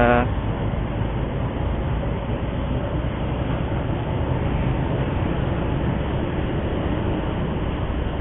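Steady rumble of road traffic and vehicle engines in a heavy traffic jam, with no distinct events standing out.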